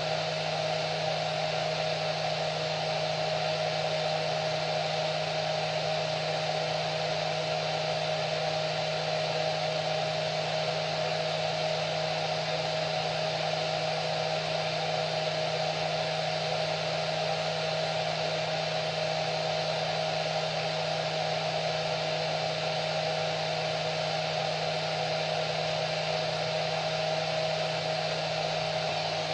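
Hair dryer running continuously: a steady airy blowing with a constant whine of the motor, unchanging in pitch and loudness.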